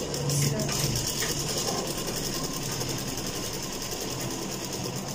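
Ansar straight-stitch sewing machine running steadily, stitching a seam along the edge of cotton fabric, with a fast, even clatter.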